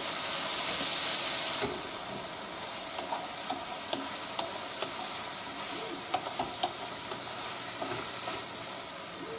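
Cubed chicken breast sizzling in olive and sesame oil in a skillet, with a spoon clicking and scraping against the pan as the pieces are stirred. The sizzle is loudest for the first second and a half or so.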